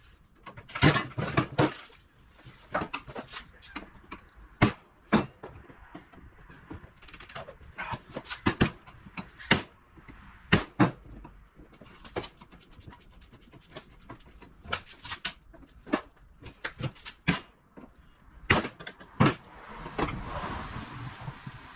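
Irregular metal clanks and clicks of hand tools and parts as a window air-conditioning unit is dismantled for scrap, with a short scraping noise near the end.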